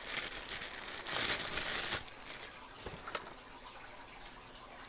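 Clear plastic bag crinkling as a brass mortise lock cylinder is pulled out of it, loudest over the first two seconds, followed by a couple of light clicks near the middle.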